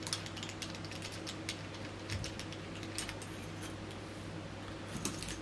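Irregular light clicks and taps of hands working at a parcel's packaging with a small cutting tool, a few of them sharper, over a steady low hum.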